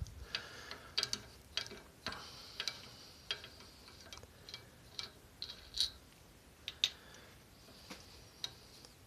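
Irregular light metallic clicks and taps of the connecting rod cap and bolts being handled on a dismantled 170F engine, the cap coming off the crankpin.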